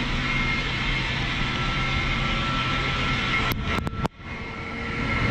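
Boeing 737 auxiliary power unit running, a steady rushing noise with a constant whine. A few sharp clicks and a brief dip in level come about four seconds in.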